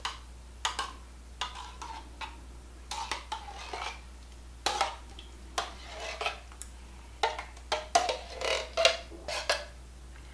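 Spoon clinking and scraping against a tin can and glass baking dish as cherry pie filling is emptied out: irregular sharp clicks and taps with short scrapes, thickest near the end.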